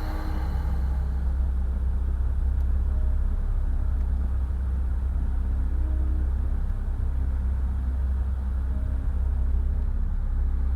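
Steady low rumble, even throughout, with no distinct knocks or strokes.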